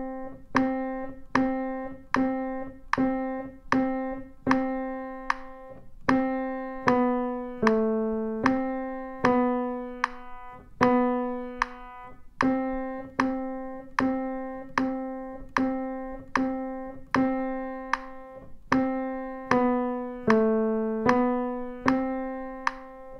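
Piano played one note at a time with the left hand, a slow beginner melody at an even pace, a little over a note a second. It mostly repeats middle C, stepping down now and then to the notes just below it.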